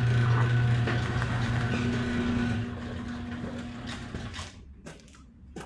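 A motor hums steadily, then stops about two and a half seconds in while the remaining noise fades away; a couple of light knocks come near the end.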